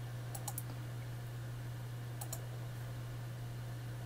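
Computer mouse clicking: two quick double-clicks, about half a second in and again about two and a quarter seconds in, over a steady low hum.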